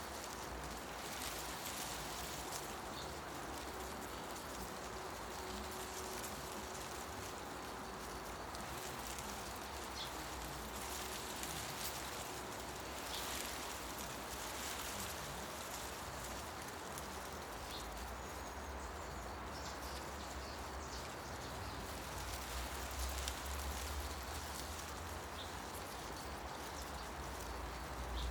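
Wind rustling through tree leaves as a steady hiss, with a few faint, short bird chirps scattered through it. A low rumble swells near the end.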